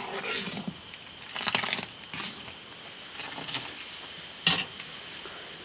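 Irregular knocks, scrapes and clatters of kitchen work with cooking utensils, the sharpest knock about four and a half seconds in.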